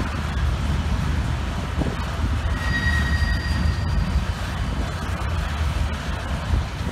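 Freight train of steel-coil flatcars rolling past, wheels rumbling steadily over the rails, with a brief high-pitched wheel squeal a little under three seconds in that lasts about a second.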